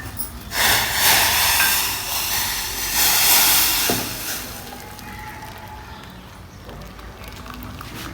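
Hot tea being poured into cups: a rushing hiss in two spells over about the first four seconds, then fainter.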